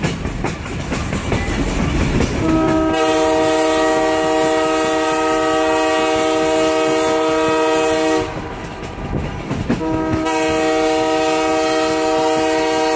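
Air horn of the Alco RS-1 locomotive No. 405 hauling the train, giving two long blasts of several notes at once: one starting about two and a half seconds in and lasting over five seconds, the second starting near the ten-second mark. Before and between the blasts the wheels rumble and clatter on the rails.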